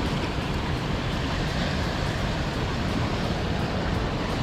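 Steady rush of ocean surf breaking on a beach, with wind.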